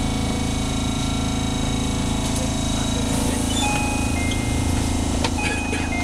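Steady hum and running noise heard from inside a Keihan 700-series electric commuter car, with a few short faint high squeals in the second half.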